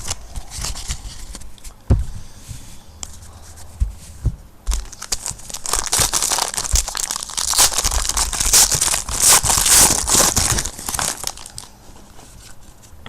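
Plastic wrapper of a trading-card pack being torn open and crinkled, with a dense stretch of crackling from about six to eleven seconds in, after a few scattered taps and handling sounds.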